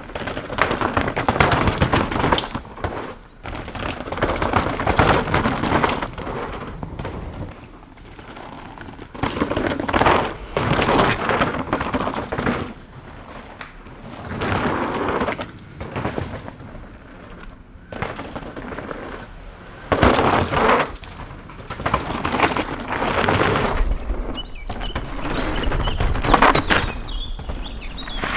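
Mountain bike tyres crunching and skidding over a dirt and gravel trail, in loud surges a few seconds apart as the DMR Trailstar hardtail is ridden past.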